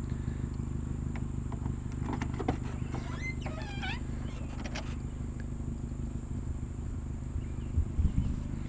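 Steady low hum of an idling car engine, with a short wavering squeak about three seconds in and a few soft knocks near the end.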